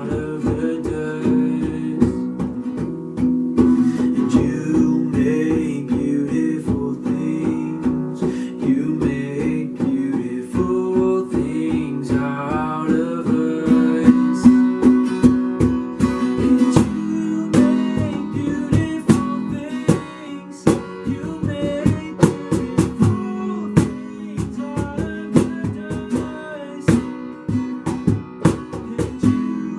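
Worship music: an acoustic guitar strummed in a steady rhythm, with sustained chords.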